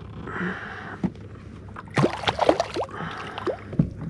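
Water sloshing and knocking against a plastic fishing kayak. A quick run of sharp knocks and short squeaks starts about halfway through.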